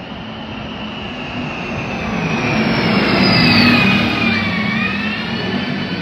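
A loud machine passing by: a rushing noise that swells to its peak about three and a half seconds in, with a high whine that drops in pitch as it goes past, then eases off.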